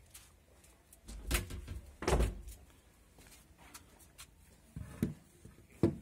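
Dull wooden knocks and thumps on a wooden shelf board: two in the first half and two more near the end, the last as a moss-covered stone is set down on the board.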